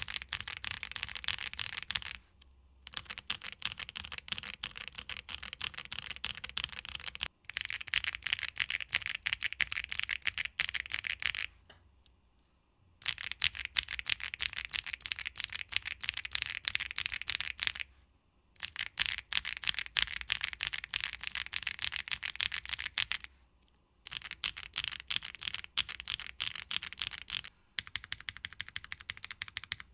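Fast continuous typing on a Tofu65 2.0 65% mechanical keyboard with Gateron Blizzard tactile switches, a polycarbonate plate and ABS keycaps: a quick run of key clacks in bursts of several seconds, broken by short pauses about two, seven, eleven to thirteen, eighteen, twenty-three and twenty-seven seconds in.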